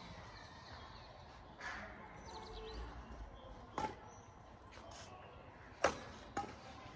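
Badminton rackets striking a shuttlecock in a rally: a few sharp hits a second or two apart, the loudest about six seconds in.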